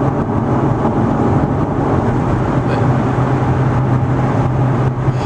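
Steady road and engine noise heard inside a moving car's cabin: a constant low drone under a hiss of tyre and wind noise.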